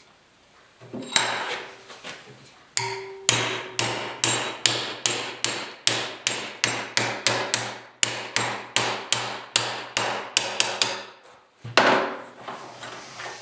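Hammer blows on a small steel latch bracket to bend it over a ridge: a steady run of ringing metallic strikes, about three a second for some ten seconds, then a short pause and one more hard blow near the end.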